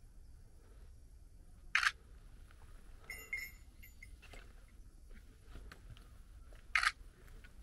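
Two short, sharp clicks about five seconds apart over quiet surroundings, with a brief faint high tone between them.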